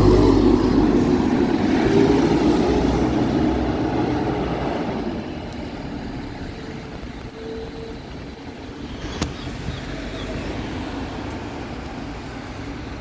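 A bus passing close by and pulling away, its engine rumble fading over the first five seconds or so. A single sharp click about nine seconds in.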